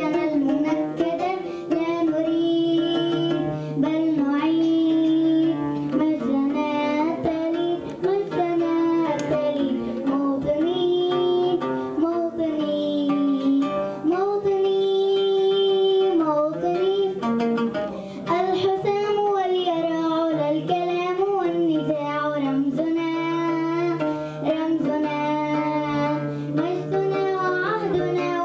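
A young girl singing a melody into a handheld microphone, amplified, in phrases with short breaths between, over instrumental accompaniment with a steady low note.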